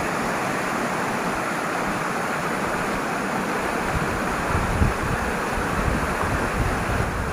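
A fast, swollen mountain river rushing with a strong current, a steady loud noise of water. From about four seconds in, low rumbles of buffeting on the microphone come in under it.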